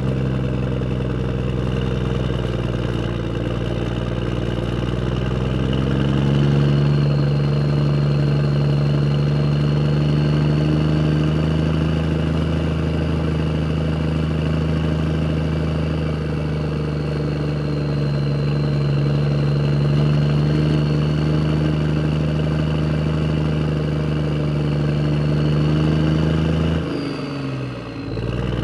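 A motor vehicle engine running steadily at idle: an even low hum with a faint high whine above it. Near the end it dips briefly, sliding down in pitch, then picks up again.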